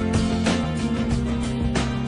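Pop music with guitar and a steady beat.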